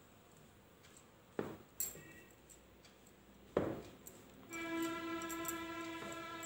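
A few dull knocks while a hand works flour in a plastic bowl. Then a steady horn-like tone comes in about four and a half seconds in and is held for over two seconds, a single pitch with a stack of overtones. It is the loudest sound here.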